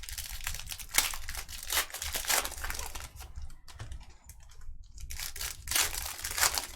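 Donruss Optic football card pack wrappers being torn open and crinkled by hand, in two main stretches of crackling and rustling, the second near the end.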